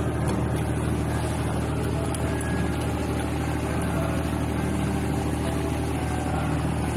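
Steady low hum of an engine idling, unchanging throughout.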